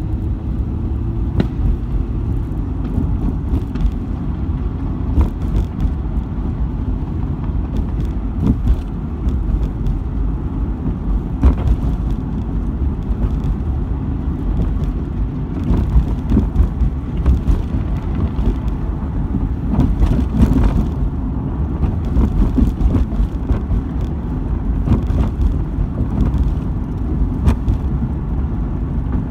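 Car driving, heard from inside the cabin: a steady low road and engine rumble, with scattered sharp pops from fireworks going off around the street.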